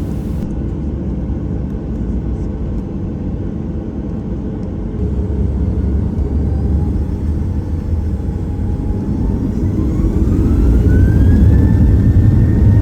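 Boeing 737 jet engines spooling up for takeoff, heard inside the cabin: a steady low rumble, with a whine that rises in pitch from about six seconds in and levels off near the end as the rumble grows louder.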